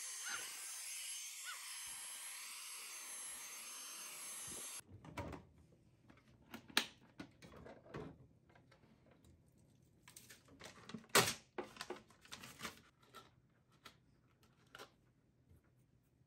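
Cordless stick vacuum running on a rug, a steady high-pitched whine with hiss, switched off suddenly about five seconds in. Then scattered plastic clicks and knocks as its dust bin is opened and emptied over a trash can, the loudest a sharp knock about eleven seconds in.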